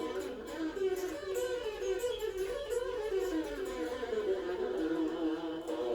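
Music: an instrumental passage of pitched tones that waver up and down in pitch.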